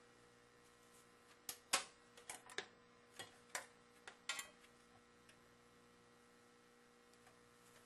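A quick run of about nine sharp plastic clicks and knocks over some three seconds as a homemade blimp windscreen on its pistol grip is handled and moved, then only a faint steady hum.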